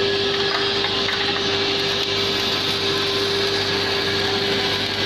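MIG welding arc sizzling steadily, with a constant hum and a steady mid-pitched tone from the machinery beneath it.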